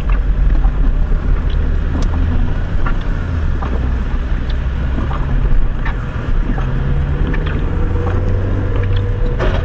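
Car cabin noise while driving on a wet street: a steady low rumble of engine and tyres on wet asphalt, with scattered faint clicks.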